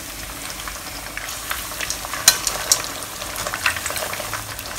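Batter-coated pork ribs deep-frying in hot oil: a steady sizzle with scattered sharp pops and clicks, the loudest a little over two seconds in, as the ribs are turned with metal tongs.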